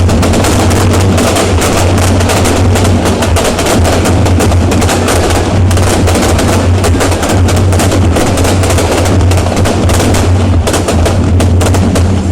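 Fireworks crackling in a dense, rapid, unbroken run of sharp bangs over a steady low rumble.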